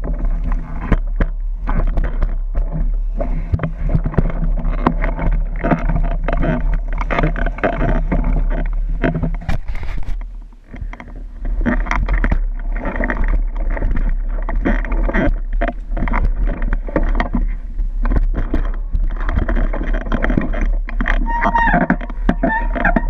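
Dirt bike engine running at low revs on a steep, rocky downhill, with frequent knocks and rattles as the bike jolts over loose rocks. The sound briefly drops away about ten seconds in, and a high, wavering squeal starts near the end.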